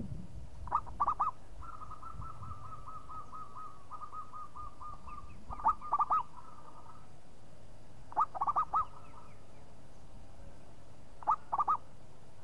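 Zebra dove (perkutut) singing: four phrases of three or four loud, quick cooing notes. After the first phrase comes a long run of soft, rapid repeated notes, and shorter runs follow the others.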